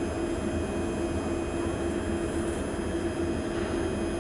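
MRT train standing at a station with its doors open: a steady hum from the train's onboard equipment and air-conditioning, with a low tone that pulses about twice a second and faint high whines above it.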